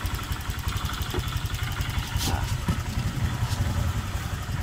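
Honda Vario scooter's single-cylinder engine idling steadily, with a few faint clicks over it.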